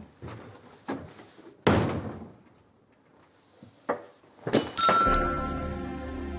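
A few knocks and thumps, the loudest a sharp thud about two seconds in. Background music with a held high tone over low bass comes in about five seconds in.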